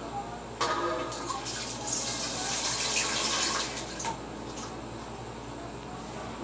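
A metal knock, then water pouring and splashing for a few seconds, loudest in the middle and fading off.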